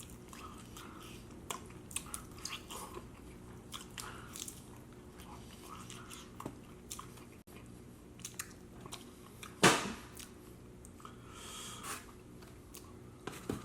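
A person chewing chicken wings close to the microphone, with wet lip-smacking and many small clicks, and one much louder sharp bite or smack about ten seconds in.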